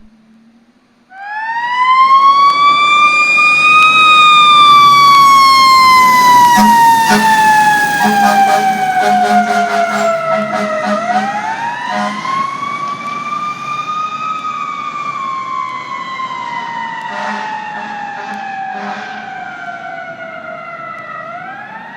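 Fire ladder truck's siren wailing on an emergency run. It winds up about a second in and slowly sweeps down in pitch, then winds up again about halfway through and sweeps down again. Another rise begins at the very end.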